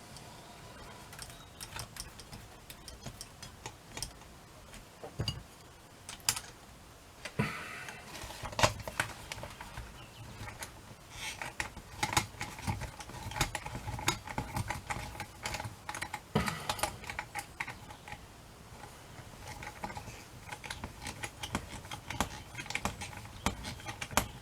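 Irregular small metallic clicks and taps of clock movement parts and a small nut being handled and threaded by hand, a few clicks louder than the rest.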